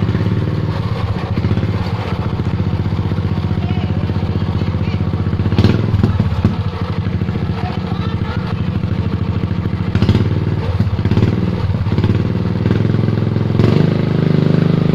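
Small Honda GP single-cylinder four-stroke water-pump engine running through a CHA Racing motorcycle exhaust, giving a steady, rapid exhaust beat. It swells louder briefly about six seconds in, again about ten seconds in, and near the end.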